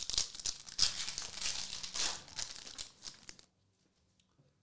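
Crinkling and rustling of a trading card pack wrapper and cards being handled, for about three and a half seconds, then stopping.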